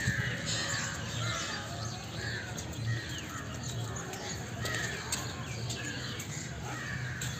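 Birds calling outdoors: a harsh call repeated about once a second, with fainter chirps over it.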